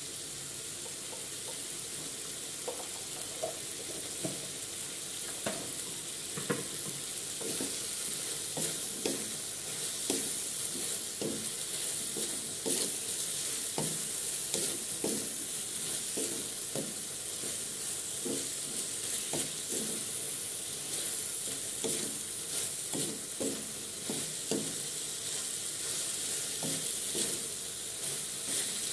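Diced pork sizzling in an aluminium wok as a wooden spatula stirs it. From a couple of seconds in, the spatula knocks and scrapes against the pan about once a second over the steady hiss of the frying.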